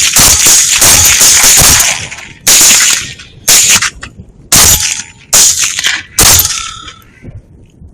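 Rifle fire from several hunters shooting at hogs together: a rapid, overlapping volley for about two seconds, then five more single shots about a second apart, each ringing out briefly.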